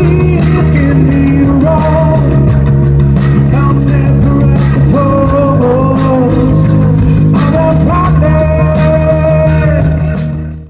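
Live rock band playing: a male singer sings over keyboards, electric guitar, bass and drums. The music cuts off abruptly at the very end.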